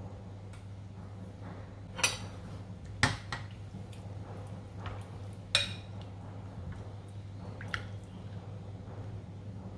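A ladle stirring soup in a ceramic pot: liquid sloshing, with a few sharp knocks of the ladle against the pot, over a steady low hum.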